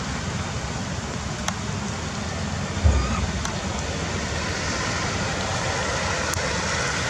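Steady hiss of rain falling, with a low rumble underneath and a few faint drop ticks, and a brief low thump about three seconds in.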